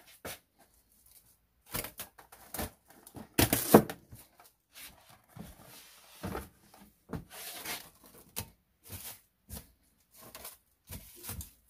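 Plastic cling wrap crinkling and rustling in irregular bursts as it is pulled from its box, torn off and pressed over a glass bowl, loudest about three and a half seconds in.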